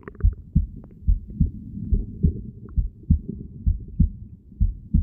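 Heartbeat heard through a stethoscope pressed to a body: steady, regular low thumps, about two a second.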